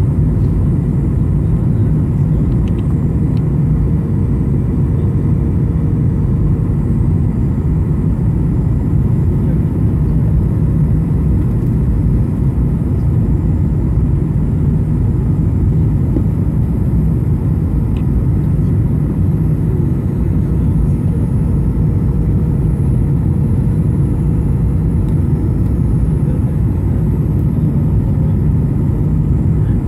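Steady cabin noise of a Boeing 737-800 on approach, heard from a window seat beside its CFM56 turbofan engine: a deep, even rumble of engine and airflow with a faint steady hum and a thin high whine above it.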